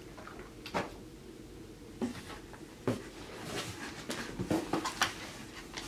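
Scattered light knocks and rustling from produce and packaging being handled inside a cardboard box, busiest in the second half.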